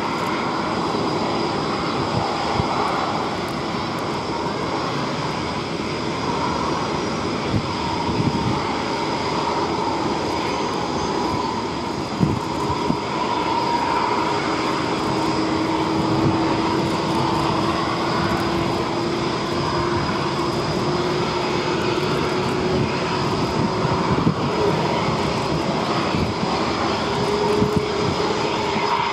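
Boeing KC-767J tanker's twin turbofan engines running steadily as the aircraft taxis on the runway. A whine rises slowly in pitch over the second half.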